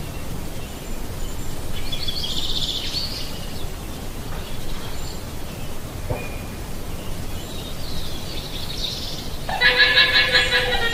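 Llama calls: a fainter high call about two seconds in, then a loud, high-pitched call near the end, over a steady background hiss.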